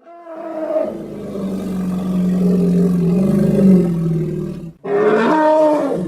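Power Rangers Triceratops Zord roar sound effect: one long, low roar lasting nearly five seconds, then a shorter second roar after a brief break.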